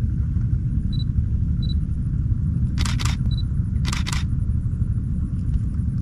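Camera shutter firing in two short bursts of quick clicks, about a second apart, over a steady low rumble, with three short high-pitched beeps.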